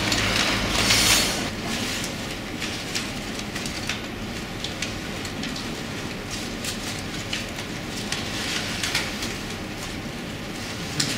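Brown paper crinkling and rustling as a paper puppet is handled: a steady hiss with many small irregular crackles.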